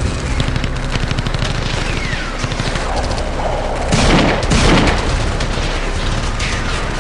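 Sound-effect gunfire: a rapid crackle of shots runs on as the rumble of an explosion fades, then two loud gunshots less than a second apart about four seconds in.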